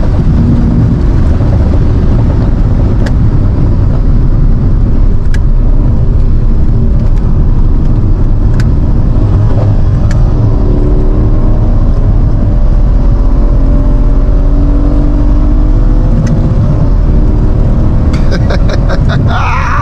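Twin-turbo V8 of a 2016 Mercedes-AMG C63 S pulling at highway speed, heard from inside the cabin under heavy road and wind rumble. The engine note climbs steadily from about eight seconds in as the car accelerates.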